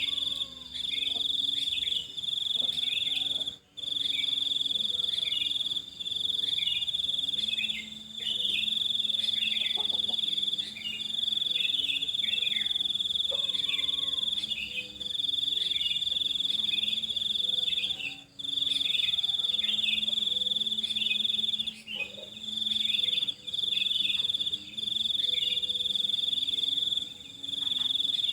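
A steady, high-pitched insect trill running in long stretches broken by brief gaps every few seconds, with many short, quick bird chirps scattered over it.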